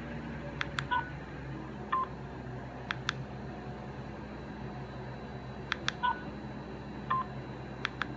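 Sony Ericsson K300i mobile phone playing a sparse electronic ringtone through its small speaker: sharp clicks and short high beeps in a pattern that plays twice, about five seconds apart.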